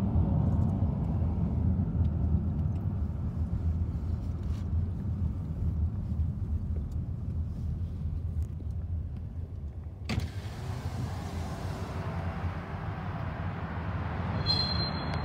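Road noise of a moving car heard from inside: a steady low rumble of tyres and engine. About ten seconds in, a louder hiss of wind and road noise suddenly comes in and stays. A brief high squeal sounds near the end.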